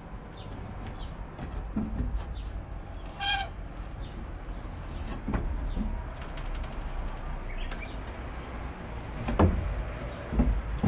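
Irregular knocks, taps and scrapes of hand-tool demolition work on wooden boards. A short squeak comes about three seconds in, and the loudest knocks come near the end. A low rumble runs underneath.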